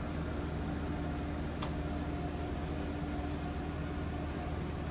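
Steady hum of running machinery and ventilation in a motor yacht's engine room: a low drone with a couple of steady tones over it. One sharp click about a second and a half in.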